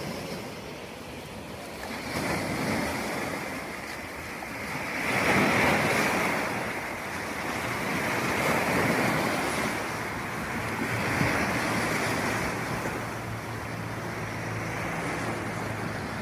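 Sea waves washing in, the rush swelling and fading about every three seconds, with some wind on the microphone. A faint low hum joins about ten seconds in.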